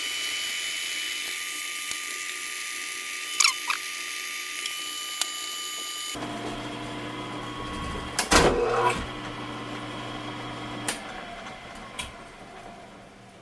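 Metalworking machine drilling a steel hinge pin, a steady whine for about six seconds. The sound then drops to a lower hum, with a brief clatter of knocks a couple of seconds later, and fades toward the end.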